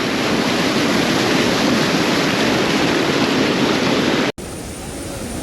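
Loud, steady rush of a waterfall. About four seconds in it cuts off abruptly and a quieter rush of water follows.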